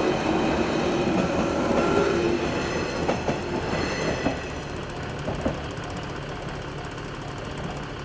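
JR 113 series electric train running over a level crossing, its wheels clacking over the rail joints a few times as the last car passes about halfway through. The train noise then fades, leaving the crossing's warning bell ringing in a steady, even rhythm.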